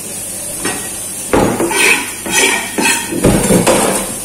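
Knocks and clatter of kitchenware handled in a stainless-steel sink under a running tap, several loud irregular knocks in the second half over a steady hiss of water.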